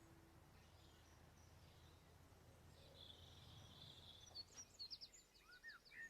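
Near silence, then from about three seconds in faint birdsong: a string of short chirps gliding up and down in pitch.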